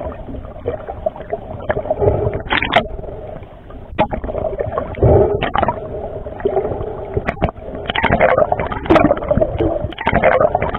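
Muffled underwater water noise heard through the camera, gurgling and bubbling, with several louder surges and a few sharp clicks.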